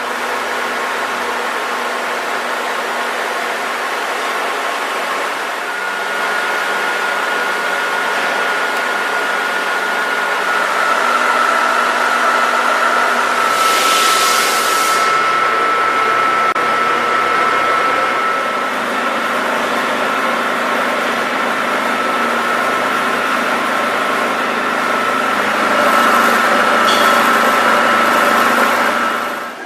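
KNUTH WF 4.1 tool milling machine running, its drive giving a steady mechanical noise with a thin high whine. A short hiss comes about fourteen seconds in.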